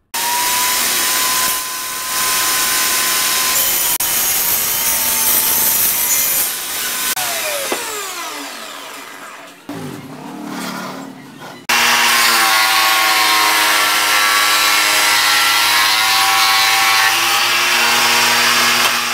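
Homemade table saw running and cutting wood, then switched off, its pitch falling as the blade winds down. About twelve seconds in, a power tool starts abruptly and runs steadily with a constant whine.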